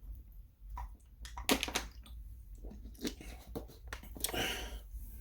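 Scattered sharp clicks and taps, the loudest about one and a half seconds in, with a brief rustle near the end, over a low steady hum: close handling noise.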